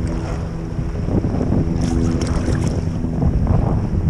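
Heavy wind buffeting the microphone, with several steady low tones held through it and a few faint clicks about halfway.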